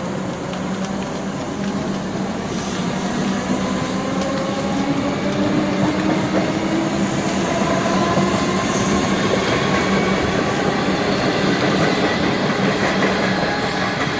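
Melbourne suburban electric train passing and picking up speed: a steady rumble of wheels on rail, with a motor whine that rises slowly in pitch and grows louder.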